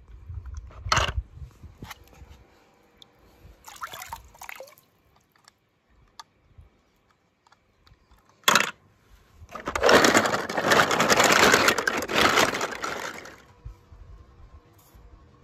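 Water in a swimming pool splashing. There are two brief, sharp splashes, then a few seconds of continuous splashing and sloshing in the second half.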